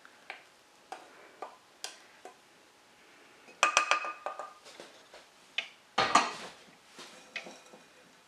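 Stainless steel saucepan clinking against a metal mesh sieve and pot while blueberry syrup is poured through. There are scattered light clicks, a cluster of ringing metal clinks about three and a half seconds in, and a heavier knock about six seconds in.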